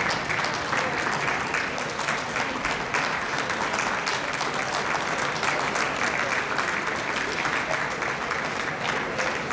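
Audience applauding steadily, many hands clapping without a break.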